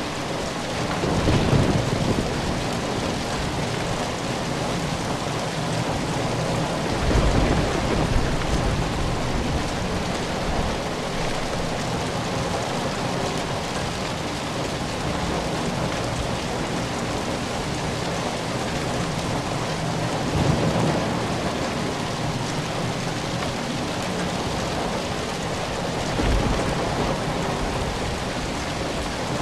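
Steady rain falling on surfaces, with low rumbles of thunder swelling up four times: about a second in, around seven seconds in, and twice more in the second half.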